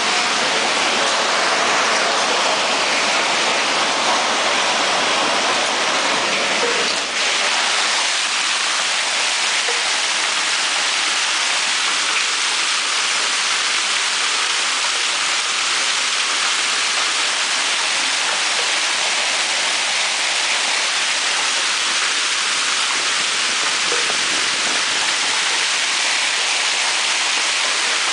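Heavy hailstorm: hail and rain falling hard, a dense, steady hiss of countless impacts with only a brief dip in level about seven seconds in.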